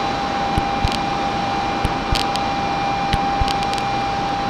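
Steady hum and hiss of electric commuter trains standing at the platform, their air conditioning and auxiliary equipment running. A steady high tone sounds throughout, with a few light clicks.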